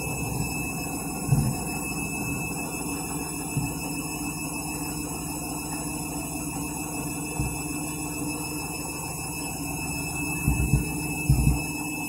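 Washing machine running with an unbalanced load: a steady motor hum and rumble broken by irregular low thuds from the drum, with a cluster of them near the end.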